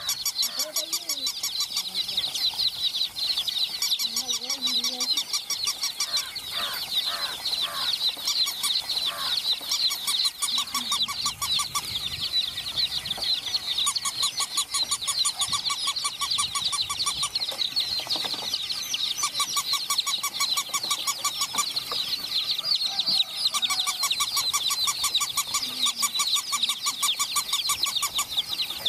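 A group of baby chicks peeping continuously, many high, rapid cheeps overlapping. A fast, even clicking comes and goes in stretches.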